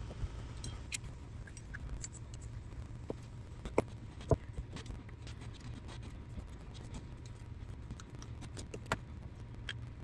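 Small metal parts of a mechanical fuel pump clicking and clinking as they are handled and fitted back together, in short scattered taps. The sharpest clicks come about four seconds in and again near the end, over a low steady hum.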